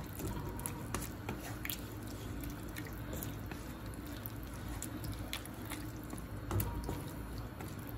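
A spatula stirring watery beans and tomato gravy in a pan, just thinned with a cup of water: soft wet squishing with scattered light clicks of the spatula against the pan.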